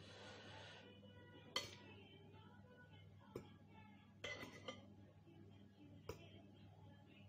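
Metal fork and spoon clinking against a ceramic soup bowl while noodles are eaten: a handful of sharp, separate clinks, the loudest about a second and a half in, a quick cluster in the middle and one more near the end.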